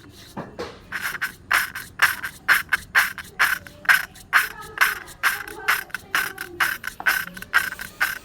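Valve of a Bajaj Discover 135 cylinder head being lapped into its seat with grinding paste: a short rasping scrape repeated about three times a second as the valve is twisted back and forth.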